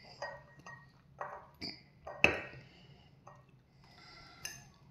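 Glass mason jars and clear plastic tubing being handled: a few light knocks and clinks, with one sharper glassy clink a little over two seconds in.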